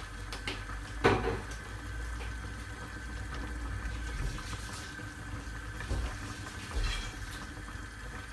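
Steady liquid sound of cooking at the stove, with one sharp knock of cookware about a second in and two lighter knocks near the end.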